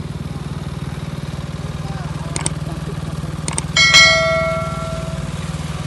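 An engine running steadily, a low, fast-pulsing hum throughout. A few small clicks come about two and a half seconds in, then a sharp metallic-sounding clink near four seconds in that rings out for about a second and a half.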